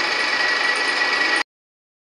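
Drill press running, a steady whine over its mechanical running noise, which cuts off abruptly to silence about one and a half seconds in.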